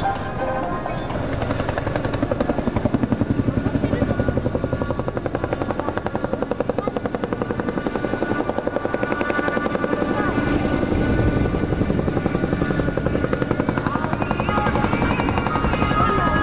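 CH-47JA Chinook tandem-rotor helicopter running up close, its twin rotors beating in a fast, even throb that grows louder a second or two in.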